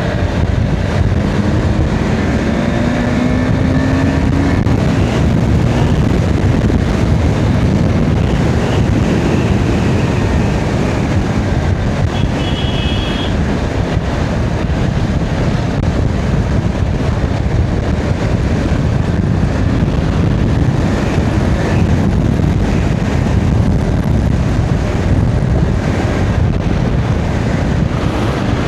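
Motorcycle ride at road speed: steady wind rush on the microphone over engine and road noise. An engine note rises over the first few seconds, and a short high tone sounds about twelve seconds in.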